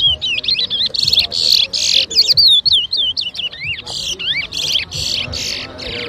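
Twa-twa (large-billed seed finch) singing in competition: a fast, continuous run of clear whistled notes sliding up and down, broken every second or so by short harsh, buzzy bursts.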